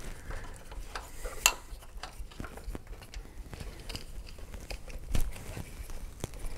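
Scattered small clicks, taps and rustles of a plastic wiring-harness connector and its wires being handled and worked into the factory headlight plug, with one sharper click about a second and a half in and a duller knock near the end.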